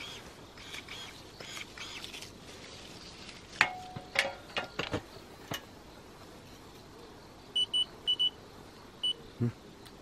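Portable electric pruning shears snapping shut through apple water sprouts: five sharp clicks with a brief metallic ring, the first the loudest, around the middle. Five short, high electronic beeps follow near the end, mostly in pairs.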